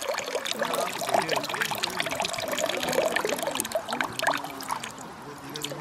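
Water sloshing and trickling as a handful of freshly caught smelts are rinsed by hand in clean water, with many small irregular splashes.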